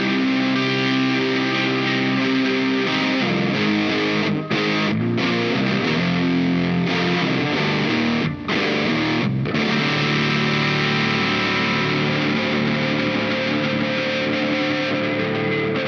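Electric guitar tuned to C standard, played through a Dazatronyx RAD 4-knob distortion pedal (a RAT-style circuit) with every knob on full except Hair. It plays heavy, distorted low riffs of sustained chords, broken by short stops about four to five seconds in and again around eight to nine seconds in.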